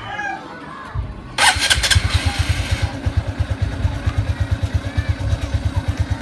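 Honda RS125 Fi's single-cylinder four-stroke engine, breathing through an aftermarket Apido pipe with silencer, cranked and started about a second in. It catches with a brief loud blip and then settles into an even, rapid idle beat.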